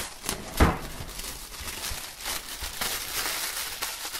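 Plastic shrink-wrap crinkling and crackling as it is peeled off a cardboard box and crumpled up, with a single thump about half a second in.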